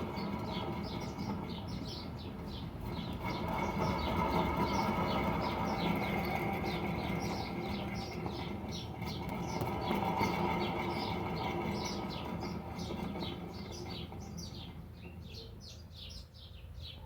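Birds chirping rapidly and continuously over a steady low rumble that swells and fades a couple of times.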